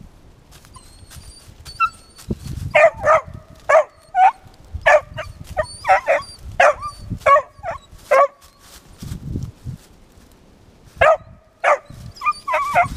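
Squirrel dog barking treed at the base of a tree while jumping up the trunk: the tree bark that tells the hunters a squirrel is up the tree. It gives a quick run of short, high barks for about five seconds, pauses for about three seconds, then barks again near the end.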